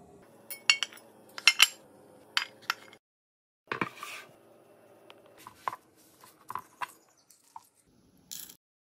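Sharp clinks and taps of dishes and a metal fork, in short separate groups, with a brief crisp crunch near the end as the fork cuts into baked phyllo pastry.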